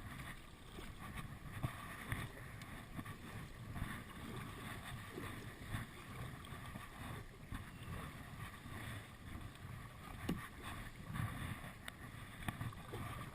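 Water splashing and sloshing around a Hobie Outback sit-on-top kayak as it is paddled, with irregular swells and a few sharp ticks, and wind buffeting the microphone.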